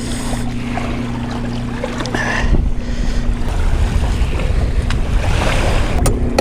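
Wind buffeting the microphone beside the water, with a steady low motor hum that drops out about halfway through and returns near the end.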